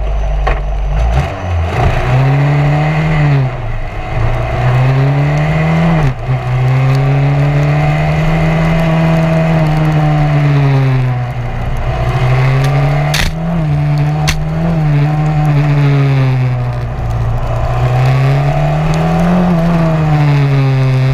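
Open-wheel formula race car's engine, heard onboard, revving up and down repeatedly as the car is driven hard, its pitch climbing under acceleration and dropping sharply several times as the throttle is lifted. A steady hiss of tyre spray off the wet surface runs underneath, with a couple of sharp clicks in the middle.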